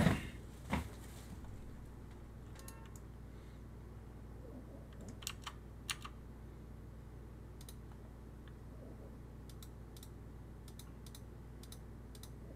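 Computer keyboard and mouse clicking: scattered light clicks, one or two every second or so, over a steady low hum. Two dull thumps in the first second are the loudest sounds.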